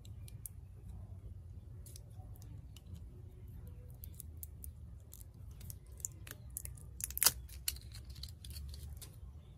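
Small crackles and clicks of a plastic shrink-wrap seal on a gel polish bottle being slit and peeled with the tip of metal tweezers. A sharper click comes about seven seconds in.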